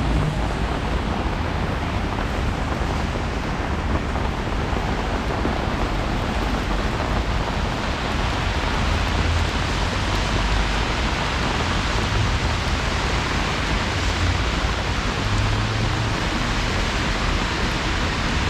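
Steady hiss of rain and wet-road traffic on a city street, an even noise over a low traffic rumble.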